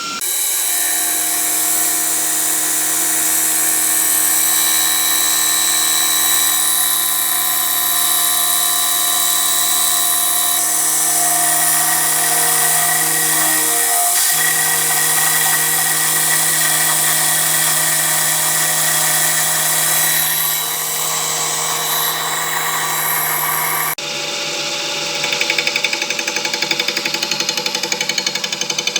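CNC milling machine spindle running at high speed with an end mill cutting: a steady high whine over a constant hum. About 24 s in the sound changes abruptly to a fast, even pulsing.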